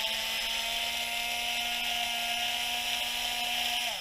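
Small handheld electric power tool running with a steady high whine, then spinning down near the end, working on the little screw that captures the shock rod.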